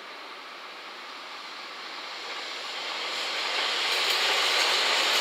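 Three-car JR West 227 series electric train passing at speed without stopping. Its wheel-on-rail noise and hiss grow steadily louder as it approaches and draws alongside, loudest from about three and a half seconds in.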